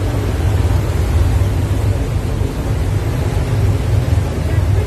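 Wind buffeting the phone's microphone on the open stern of a moving ferry: a loud, uneven low rumble over the steady noise of the boat's engine and churning wake.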